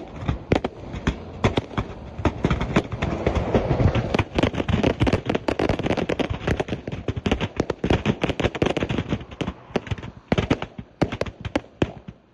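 Fireworks cargo of a burning truck going off: a dense, continuous crackle of bangs and pops, thinning to separate bangs over the last couple of seconds.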